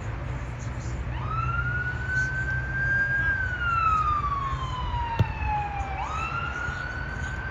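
An emergency-vehicle siren wailing: its pitch rises, holds, then glides slowly down over about three seconds and rises again near the end. A steady low rumble runs underneath, and there is one sharp click about five seconds in.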